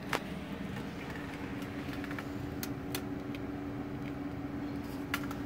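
Steady low mechanical hum holding one even tone, with a few faint sharp ticks scattered through it.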